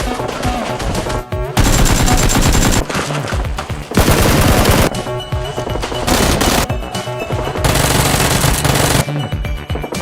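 Rapid automatic gunfire sound effects in bursts, over background music.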